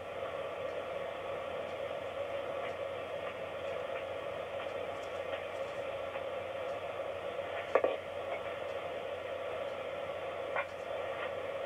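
Steady hiss and hum from a television between lines of speech, with a faint tap about eight seconds in and another a little before the end.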